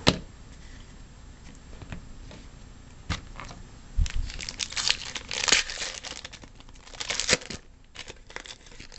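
A trading-card pack wrapper being torn and crinkled, in a few short crackling bursts, the longest about five seconds in, with a couple of sharp clicks of card handling.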